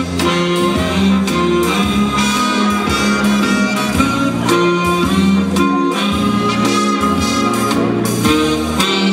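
Instrumental slow foxtrot dance music played over loudspeakers, with long held melody notes over a steady bass line.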